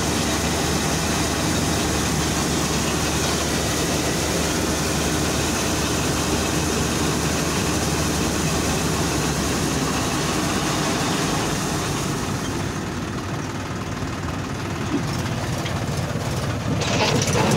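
Combine harvester running steadily while its unloading auger discharges threshed paddy into a tractor trolley: a dense, unbroken mechanical din. About twelve seconds in it turns duller and a little quieter, and it grows louder again just before the end.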